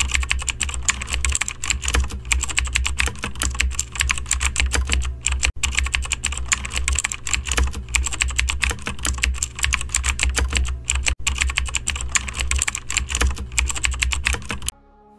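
Rapid, continuous typing on a computer keyboard: a dense clatter of key clicks over a steady low hum. The clatter breaks off for an instant twice, about every five and a half seconds, as the clip loops, and stops just before the end.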